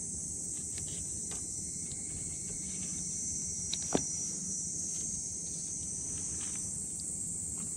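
A steady high-pitched chorus of insects at dusk, with a few faint ticks and one sharper click about four seconds in as a spinning reel is wound in.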